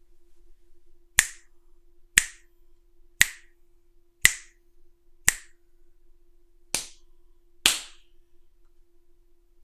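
Seven sharp, single clicks, about one a second with a slightly longer gap near the middle, each with a short bright ring, over a faint steady hum.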